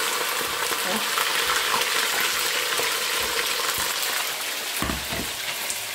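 Raw chicken thigh pieces frying in hot oil in a black pan: a steady, dense sizzle with fine crackles as the meat is seared for plov.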